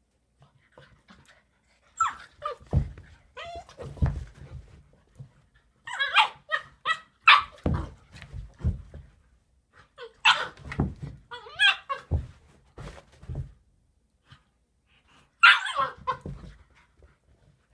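Two dogs play-fighting, giving short barks and yips in several bursts with brief pauses between them.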